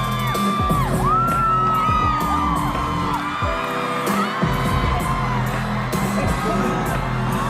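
Pop music from a stadium soundcheck over a large sound system, with fans screaming over it in several long, high-pitched cries that glide up and then hold or fall away.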